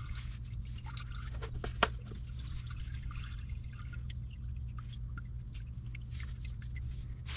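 Engine oil trickling and dripping from a partly loosened oil filter into a plastic drain container, over a low steady hum, with one sharp click a couple of seconds in.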